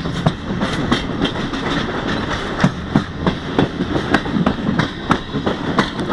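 Frecciarossa train's wheels clacking over rail joints as it moves through the station tracks, heard from inside the carriage: sharp, irregular clacks several times a second over a steady rumble of running noise.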